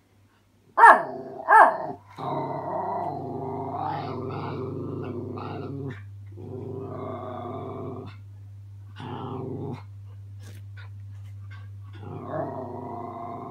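Young Miniature Schnauzer puppy barking twice, short and sharp, about a second in, then growling in long stretches with short pauses at its own reflection in a mirror. It is an unpracticed puppy's growl.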